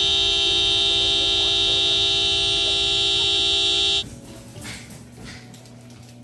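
A horn blaring in one loud, steady blast of about four seconds that cuts off abruptly.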